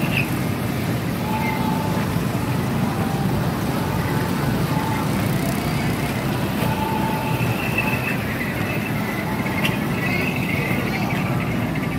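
Steady low outdoor rumble at an even level, with faint short tones over it a few times.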